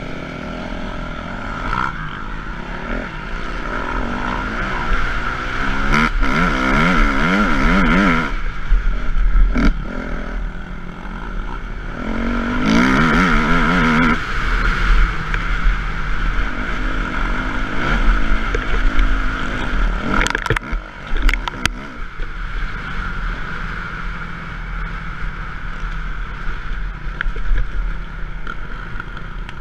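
Motocross bike engine heard close up from the rider's camera, revving up and dropping back while riding a rutted dirt track. It revs hardest twice, about six and twelve seconds in, and there are a few sharp knocks about twenty seconds in.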